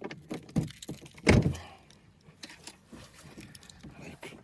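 A single heavy thunk about a second in, with light clicks and rattles around it.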